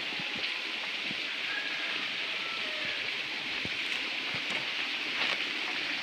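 Steady high hiss of forest background noise, with scattered soft knocks.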